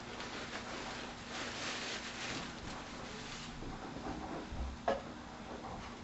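Plastic bag of dental stone powder crinkling and rustling as a measuring cup scoops from it, then a single light click about five seconds in.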